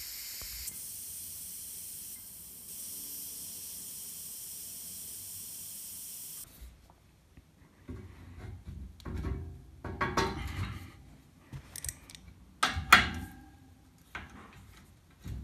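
Air hissing steadily in through an opened radiator bleed screw, drawn in as the central heating system drains down; it cuts off about six seconds in. Then spanners clink and scrape on a towel radiator's valve nut as it is loosened, with one loud metallic clank near the end.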